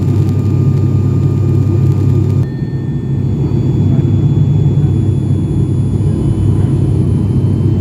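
ATR 72 turboprop engines and propellers droning loudly, heard from inside the passenger cabin on approach. The drone's tone shifts about two and a half seconds in and the loudness dips for a moment.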